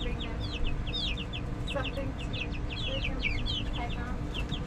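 A group of young chickens peeping: rapid, overlapping short high chirps.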